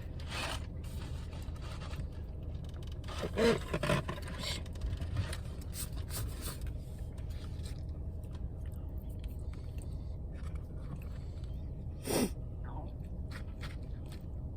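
Quiet eating sounds: chewing and a few small scrapes and clicks of food being handled, over a steady low hum, with a couple of brief voice-like mouth sounds.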